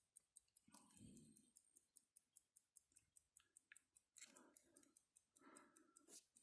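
Faint, steady ticking of a Longines 19.71N pocket watch movement, about five ticks a second, with a few soft handling rustles in between.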